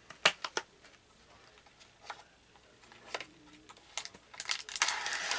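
Cardboard Pocky box being opened: a few sharp snaps and clicks of the flap, then a dense burst of plastic wrapper crinkling near the end as the inner packet is pulled out.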